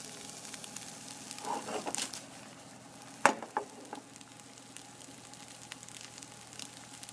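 Chinicuiles (red maguey worms) sizzling and crackling as they fry in hot oil in a frying pan. A sharp knock comes about three seconds in, followed by two lighter ones.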